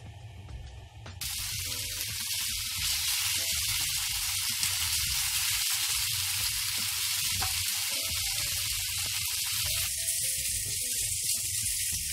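Chicken strips sizzling steadily in hot oil in a frying pan as they brown, the sizzle starting abruptly about a second in.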